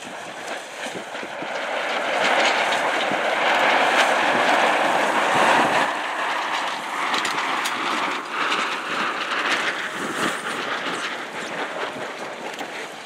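Wind blowing over the microphone and water rushing on the open water, building to a loud rush and then easing off in the second half as a racing sailboat passes close by.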